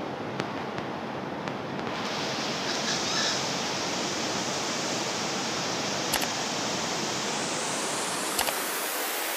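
Steady rushing of a fast-flowing river, heard as an even noise that grows a little brighter about two seconds in, with a couple of brief clicks near the end.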